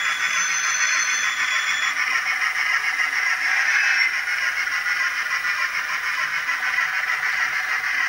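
Onboard DCC sound decoder of an N-scale Athearn Genesis 4-6-6-4 Challenger steam locomotive model, playing steam running sound through its tiny speaker as the model moves. The sound is thin and tinny with almost no low end, and a high steady tone sits over it for the first two seconds.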